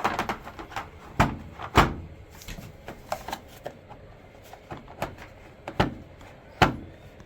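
Plastic detergent dispenser drawer of an Electrolux front-load washer being worked back into its housing: a series of separate hard knocks and clunks, the sharpest about two seconds in and again near the end.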